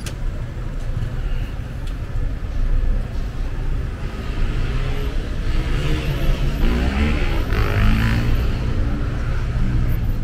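Street traffic: cars driving past on a multi-lane avenue with a steady low rumble. About halfway through, one car passes close, its engine note sliding in pitch and its tyre noise rising and falling as it goes by.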